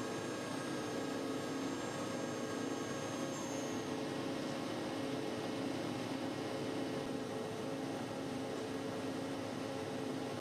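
Steady hum and hiss of a Liebherr gear-cutting machine running, with a few faint steady tones in it and no separate cutting strokes.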